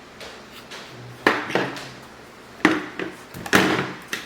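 Three sharp knocks and clatters of hard parts being handled and set down while a solar flood light kit is unpacked and assembled. Between the knocks there are quieter rustles.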